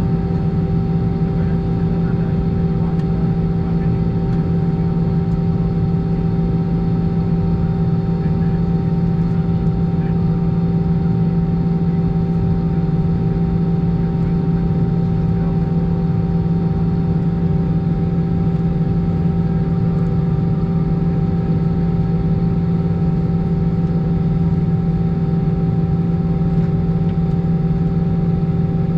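Steady hum inside the cabin of an Airbus A319 standing at the gate, a constant drone with several unchanging tones and no rise or fall.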